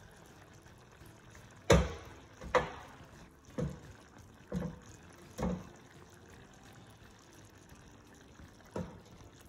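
Wet knocks and clatters as chicken pieces are lifted out of a pot of gravy and set on a baking sheet. About five hits come roughly a second apart, the first the loudest, and a last one follows near the end.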